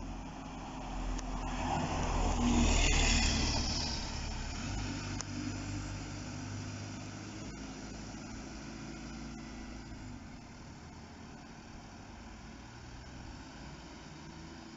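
Single-deck bus passing close by: engine and tyre noise build to a peak about three seconds in, then the engine note fades as the bus pulls away.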